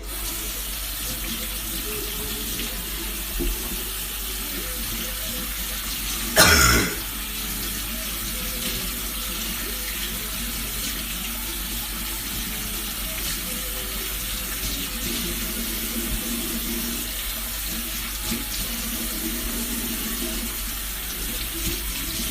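Kitchen tap running steadily into a sink, with one loud clunk about six and a half seconds in. The water cuts off at the very end.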